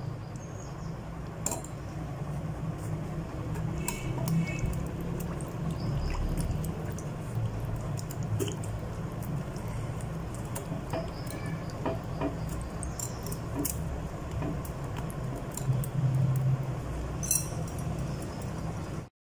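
Wire whisk and fingers stirring raw chicken pieces through a thin yogurt marinade in a glass bowl: wet stirring with scattered faint clicks of the whisk against the glass, over a steady low hum.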